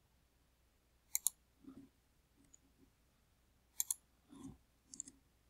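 Faint computer mouse clicks: two quick pairs of clicks about two and a half seconds apart, then a smaller click near the end.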